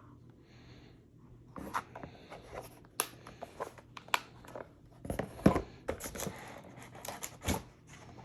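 Packaging rustling and tearing, with irregular sharp clicks and knocks as shotgun parts are taken out of the box and handled; the loudest knock comes a little past halfway.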